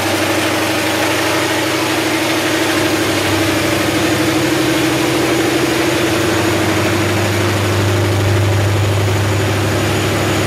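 MTU diesel generator set running steadily, a constant low engine drone with a steady hum over a wide rushing noise.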